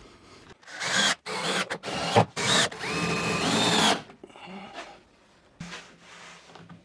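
Cordless drill-driver running in three short bursts and then one longer run of about a second, its motor whine rising in pitch, as screws are driven through an OSB panel into the wall. After about four seconds it stops, leaving only faint handling noise.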